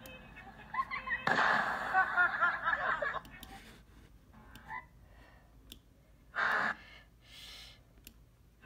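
Soundtrack of a slowed-down video playing through computer speakers. A loud, warbling, pitched sound lasts about two seconds, then there is a short burst of hissing and a fainter hiss near the end as fireworks on a Dancing Elmo toy go off.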